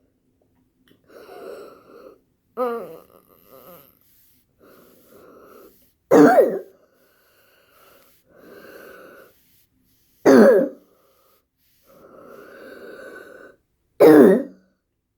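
A person breathing with a wheeze: long drawn breaths with a steady whistly tone, broken by three loud coughs about four seconds apart.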